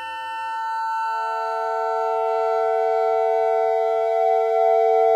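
Soma Terra microtonal digital synthesizer playing held tones; a lower note joins about a second in and the sound swells louder toward the end.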